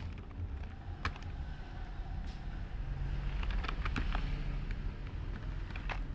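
A few scattered computer keyboard keystrokes over a steady low background rumble that swells for a couple of seconds about halfway through.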